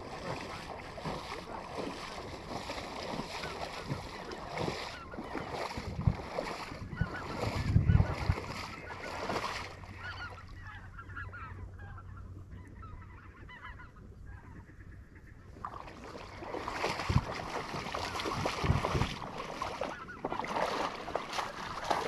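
A large flock of geese calling, many overlapping honks; it thins out about ten seconds in and swells again near the end. A few low bumps are heard among the calls.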